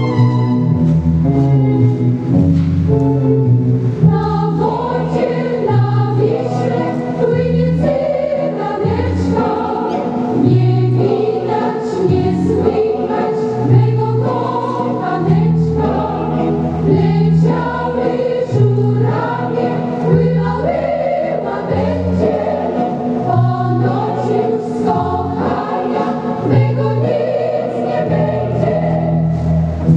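Recorded music for a Polish folk waltz: a choir singing over instrumental accompaniment with a steady, repeating bass.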